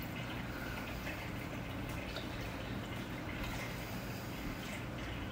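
Quiet room tone: a steady low hum with a few faint scattered ticks.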